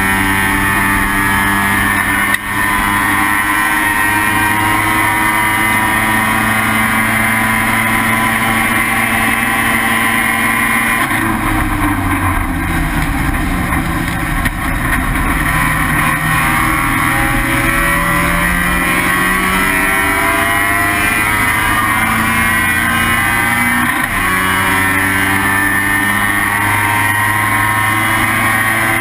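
Race car engine, a Mazda RX-7 rotary in IT7 trim, running hard at high revs. About a third of the way in it drops off as the driver lifts and brakes for a corner. It then pulls back up steadily under acceleration, with a brief break for a gear change near the end.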